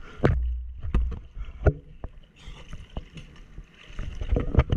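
Choppy sea water slapping and splashing against a surfboard and a camera at water level, with several sharp splashes and a low wind rumble on the microphone.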